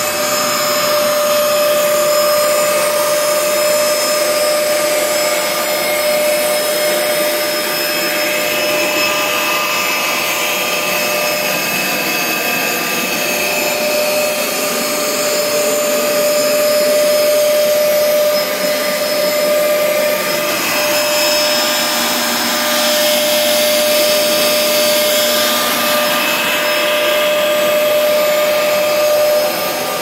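2011 Hoover Spin Scrub Max Extract 77 carpet shampooer running steadily with a constant whining hum, its suction motor pulling water back out of wet carpet.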